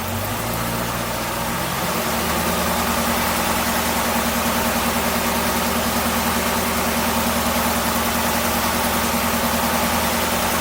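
Supercharged 6.2-litre LT4 V8 of a Camaro ZL1 1LE, revs rising over the first two seconds as the accelerator is pressed, then held steady above idle. The engine is run up this way to drive air bubbles out of the supercharger's coolant circuit while it is bled.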